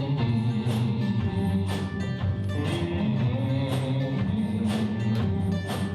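Live blues band playing a slow instrumental passage between sung lines, with sustained low notes and a percussive hit about once a second.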